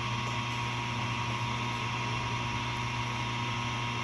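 Samsung washer-dryer running its spin cycle: a steady hum with a steady high whine and no knocking. The drum's loose pulley bolt at the back has just been tightened, which is the cure for its spin noise.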